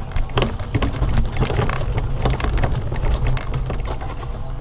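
Electric mobility scooter driving over a grass lawn: a steady low motor drone with irregular rattling clicks as it jolts over the uneven ground.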